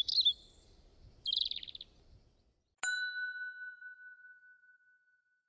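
A logo sound effect: a bird's high chirp, then a quick trill of repeated notes about a second in. About three seconds in, a single bright chime is struck and rings out, fading over about two seconds.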